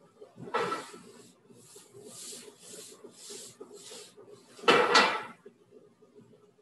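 Kale sizzling in a sauté pan as the pan is tossed on the range: a run of short swishes about two a second, then a loud clatter of the pan about five seconds in.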